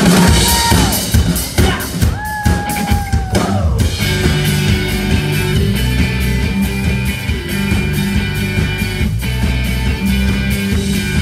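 Rock band playing live on electric guitars and drum kit, coming in together suddenly and loud. A long held guitar note slides down in pitch about three and a half seconds in, then the band settles into a steady driving groove.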